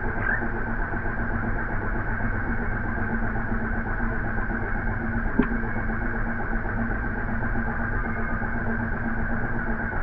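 Steady low mechanical hum with hiss, like an engine idling at a distance, holding one constant tone. A brief faint chirp sounds just after the start, and a single sharp click about five and a half seconds in.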